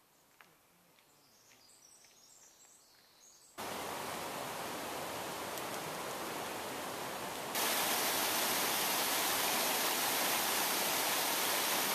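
Near silence at first, then a steady rush of creek water cascading over rocks begins; about halfway through it steps up louder and brighter, a small waterfall heard close by.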